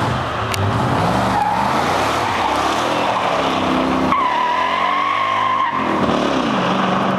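Lexus 1UZ-FE V8 in a Toyota Tacoma pickup revving hard as the truck accelerates away, its pitch climbing and dipping. About four seconds in the tires squeal for a second and a half as they break loose, and then the engine note falls away.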